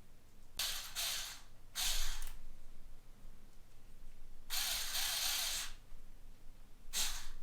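Small electric screwdriver running in short bursts as it drives tiny hex socket screws: two brief whirs, a longer one of about a second, then another brief one near the end.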